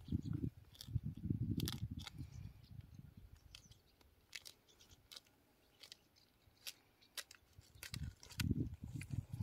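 Faint scattered clicks and crackles of hands working a drumstick seedling's plastic nursery bag and the soil around it. A low rumble runs under the first couple of seconds and returns near the end.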